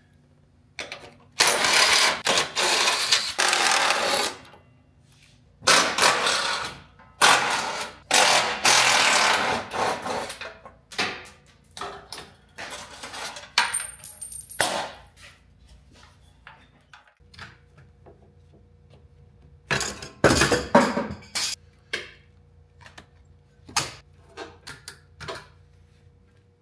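Tool and parts noise from a vehicle being stripped down: several loud bursts of noise, each a second or two long, with scattered clinks and knocks between them.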